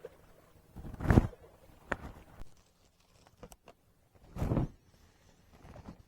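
A few short rustling and knocking noises: a loud one about a second in, a sharp click just before two seconds, and another loud one past four seconds.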